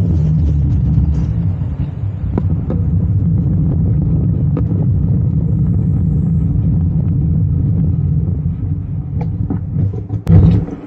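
Steady low rumble of a road bike ridden fast over a suspension-bridge deck and a paved path, with a few sharp clicks. A loud knock comes near the end.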